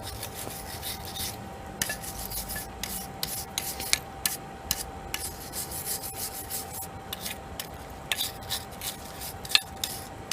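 Quick, irregular hand scrubbing strokes on the forged steel of a railroad spike knife, cleaning scale off the metal, a few scratchy strokes a second, over a faint steady hum.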